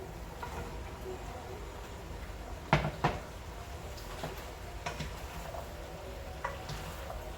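Two sharp knocks about a third of a second apart, then a few fainter clicks, over a low steady hum.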